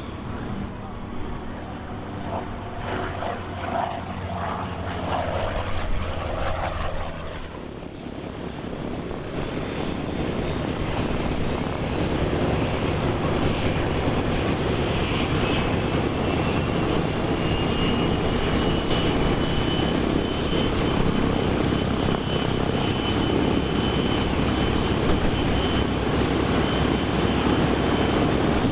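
The Douglas AD-1 Skyraider's Wright R-3350 eighteen-cylinder radial engine running on the ground, with its propeller turning. It runs at a steady lower level for the first several seconds, then grows louder and fuller from about ten seconds in, with a faint high whine rising slightly over it.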